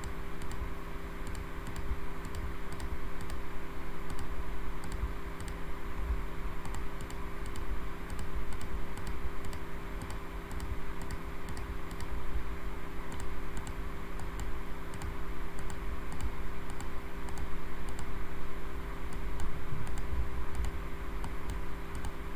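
Computer mouse clicking repeatedly at an irregular pace, over a steady low electrical hum.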